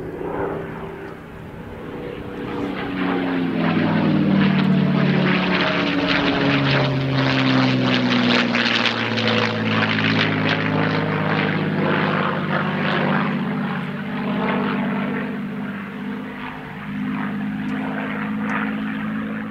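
P-51D Mustang's Packard V-1650-7 Merlin V12 engine in flight, passing by: the engine note drops in pitch over the first few seconds, then holds as a steady, loud drone.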